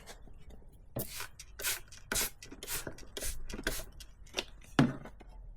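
Quick hissing squirts from a trigger spray bottle of diluted dish soap rinsing a bicycle cassette, about two a second.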